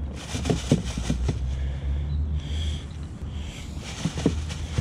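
Low rumble of wind on the microphone, with a few soft knocks around the first second and two more near the end, from handling a small landed trout in a kayak.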